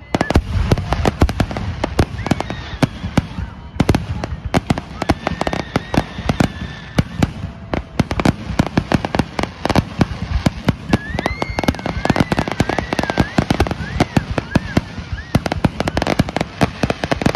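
Aerial fireworks display: a dense, rapid volley of bangs and crackles, many each second without let-up, with some high wavering whistles in the second half.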